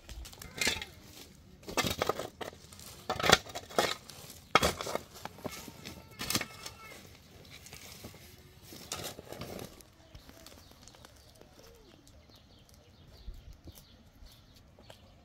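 A steel shovel digging into stony soil: a series of sharp chops and scrapes as the blade strikes earth and stones, about one every second or so for the first ten seconds, then only light clicks and rustling.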